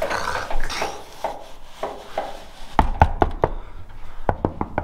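Old truck's crank-operated roll-up door window being wound shut, the glass sliding and rubbing up through new felt window channels, followed by two quick runs of sharp taps.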